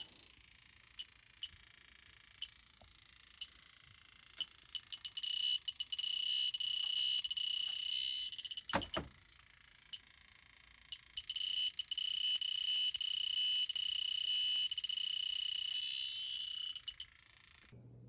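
Electronic refrigerant leak detector ticking, then speeding up into a continuous high-pitched alarm tone, twice, as it senses refrigerant leaking from the rusted evaporator coil. A single sharp knock comes about halfway through, and the sound cuts off just before the end.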